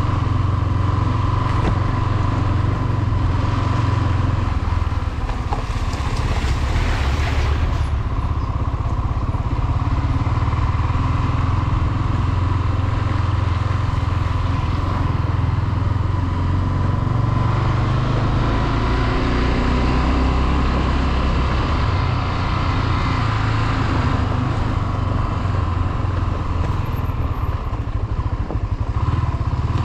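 Small-displacement motorcycle engine running steadily while being ridden, with a constant low rumble.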